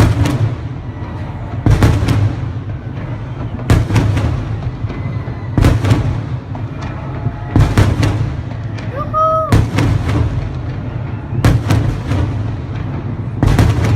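Fireworks bursting overhead: a loud bang about every two seconds, some coming in quick pairs, over a steady low rumble.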